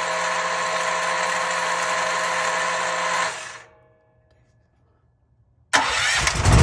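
Dual-fuel portable generator's electric starter cranking steadily, then cutting off about three seconds in without the engine catching. After about two seconds of silence, a loud second start attempt begins near the end.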